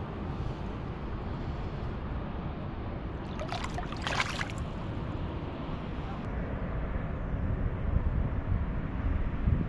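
Wind rumbling on the microphone, with a brief high, scratchy sound lasting about a second, roughly three and a half seconds in.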